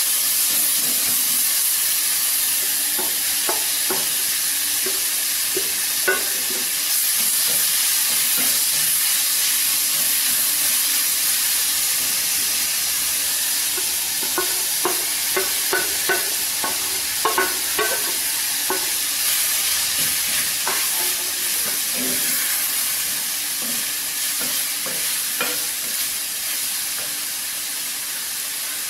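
Chopped onions and grated carrot sizzling steadily in oil in a clay pot, while a wooden spatula stirs them and knocks against the pot. The knocks come in a quick run about halfway through.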